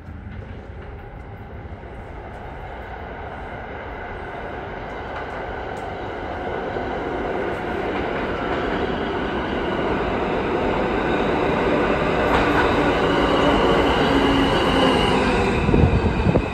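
R160 subway train arriving at an underground station. Its rumble grows steadily louder as it approaches, and steel wheels squeal in the last few seconds as it runs alongside the platform.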